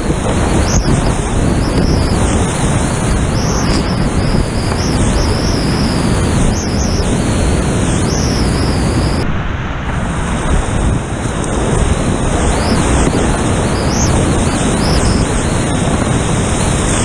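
Loud, steady rush of whitewater rapids around a kayak, close to the camera's microphone, dulling briefly about ten seconds in.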